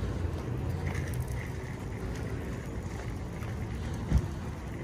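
Wind rumbling on the microphone, a low steady noise, with one dull thump about four seconds in.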